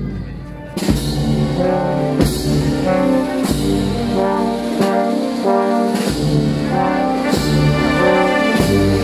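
A brass band plays a slow processional march, with sustained brass chords and heavy drum strokes every second or so.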